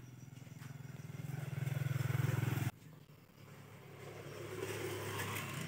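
Motorcycle engine running, growing louder and then cutting off abruptly about two and a half seconds in; a second stretch of engine sound rises again near the end.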